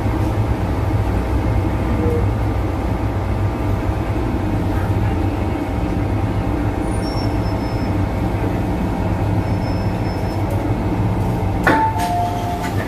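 MTR M-Train electric multiple unit running into the platform and slowing to a stop, a steady low rumble with a faint whine. Near the end the doors open with a sharp clunk, followed by a two-tone door chime beeping.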